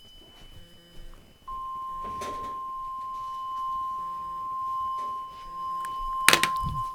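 A single steady weather-radio alert tone of about 1050 Hz starts about a second and a half in and holds unbroken, the attention signal of an emergency alert. A brief loud burst of noise cuts across it about six seconds in.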